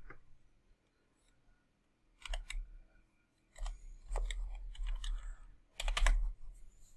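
Typing on a computer keyboard: a couple of key clicks a little over two seconds in, then a quick run of keystrokes from about three and a half to six seconds in as a word is typed.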